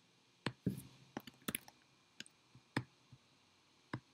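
Faint, irregular clicking of a computer mouse and keyboard, about a dozen sharp clicks in a few seconds.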